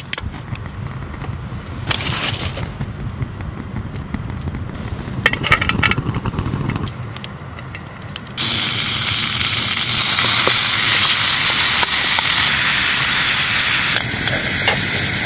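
Soy sauce poured into a hot pan on a portable gas stove, bursting into a loud, steady sizzle a little past halfway and easing somewhat near the end. Before that, only a few short knocks.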